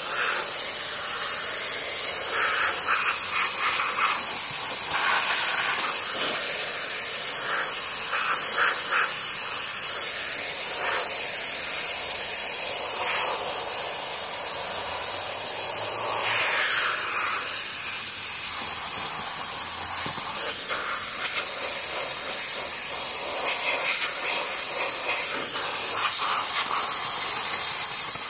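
High-pressure water jet from a pressure washer hitting a concrete wall base: a steady, loud hiss whose tone shifts as the jet moves over the surface.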